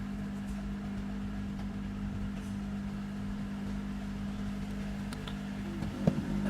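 A steady machine hum with a strong low tone, and a short wavering sound and a click near the end.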